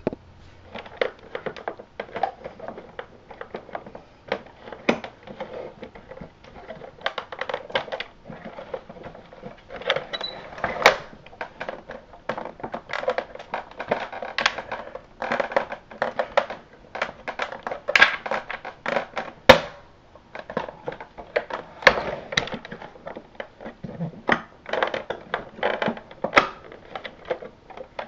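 Irregular clicking, creaking and knocking of the plastic base housing of a Westinghouse Unplugged cordless vacuum as it is forced and pried at to open it, with a few louder clicks.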